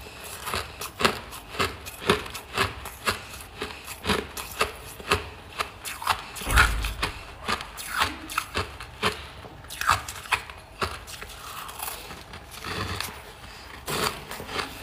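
Hard, powdery freezer frost being crunched between the teeth: sharp, irregular crunches a few times a second, with one heavier crunch about six and a half seconds in.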